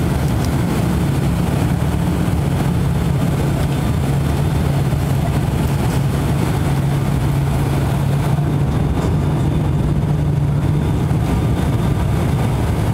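Cabin noise of an ATR 72-500 turboprop airliner descending to land. Its Pratt & Whitney PW127 engines and six-bladed propellers make a steady, loud drone with a strong low propeller hum, heard from inside the cabin.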